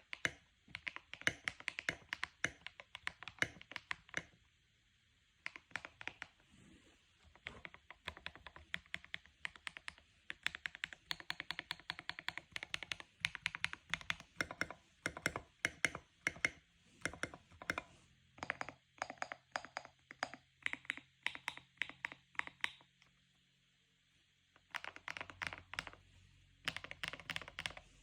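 Typing on a Melgeek MOJO75 mechanical keyboard fitted with Signature Plastics SA-profile keycaps: quick runs of keystrokes, with two short pauses, one about four seconds in and one near the end.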